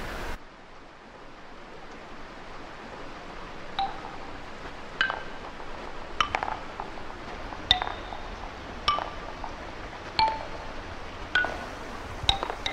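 A noisy rush cuts off right at the start. Then single notes ring out from a large wooden xylophone, one bar struck about every second, each note at a different pitch and dying away quickly.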